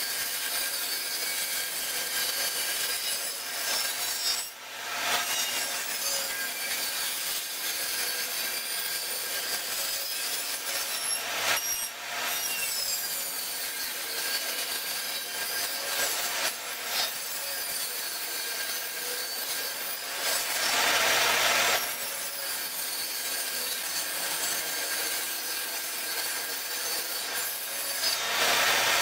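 A table saw runs with its blade raised into a jig. It shaves a wooden leg blank round as the blank is turned by hand over the spinning blade, giving a steady whine with continuous scraping of wood. The sound grows louder for a second or two about two-thirds of the way through and again at the very end.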